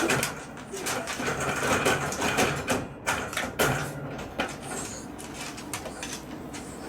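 A small dog's wire cage rattling and knocking in quick irregular clatters as a miniature dachshund pushes and scratches at it to be let out, busiest over the first four seconds or so and then dying down to a few light knocks.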